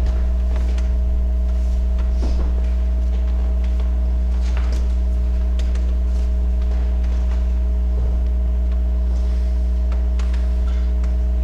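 A loud, steady low electrical hum with a few higher steady tones, with scattered soft knocks, footsteps and rustling of a congregation moving about as the offering is gathered.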